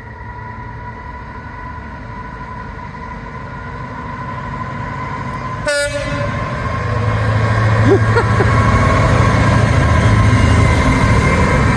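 Class 66 diesel freight locomotive's two-stroke V12 engine powering up as it approaches, growing steadily louder. A brief horn blast comes about six seconds in, then the locomotive passes loudly.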